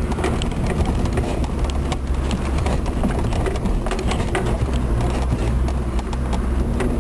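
Land Rover Discovery TD5's five-cylinder turbodiesel engine running steadily at low speed, heard from inside the cab, with frequent short knocks and rattles as the vehicle rolls over a rough gravel track.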